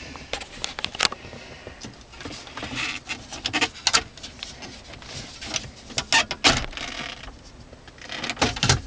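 Hard plastic clicks and knocks of a car's climate-control head unit and dash trim being handled and pressed back into the dashboard, a string of sharp snaps with louder clusters about six seconds in and near the end.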